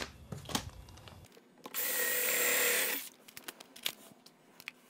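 Cordless drill-driver running for about a second and a half, driving a drywall screw into plywood, then stopping. A few light clicks and knocks follow.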